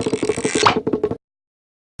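Cartoon sound effects: a fast run of wood-block clicks over a held tone, with a hissing whoosh and a short rising whistle about half a second in, cutting off abruptly to dead silence just over a second in.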